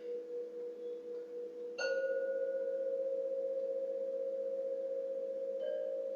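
Singing bowls ringing with a wavering, pulsing hum. A bowl is struck about two seconds in, adding a louder ringing tone, and another is struck more softly near the end.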